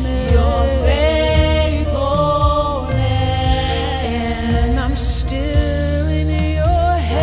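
Contemporary worship music: sung voices, choir-like, over a band with a steady bass.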